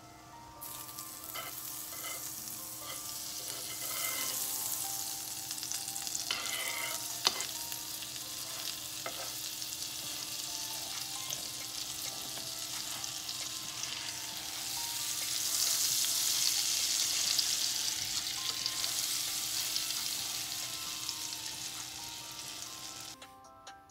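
Breaded sandwich frying in oil and melting butter in a pan, sizzling steadily and getting louder past the middle as the butter heats. A butter knife scrapes and taps in the pan, with one sharp knock about seven seconds in.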